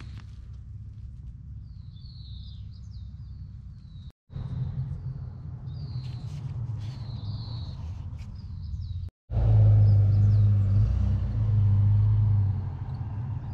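Outdoor ambience: a steady low rumble with birds chirping now and then. The sound drops out briefly twice, and the rumble gets much louder for the last few seconds.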